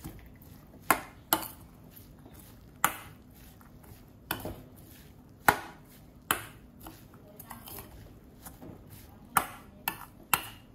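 Metal spoon stirring diced lotus root and carrot in a stainless steel mixing bowl, scraping through the mixture and clinking sharply against the bowl at uneven intervals, with three quick clinks near the end.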